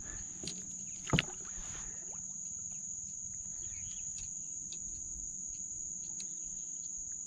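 Steady high-pitched drone of marsh insects, with one sharp knock about a second in, over a low haze of wind and water.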